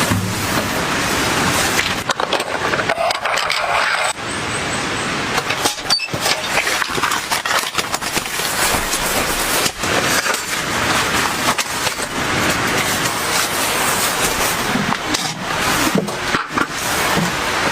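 Heavy rain pouring down, a steady rushing hiss broken off abruptly several times by short breaks.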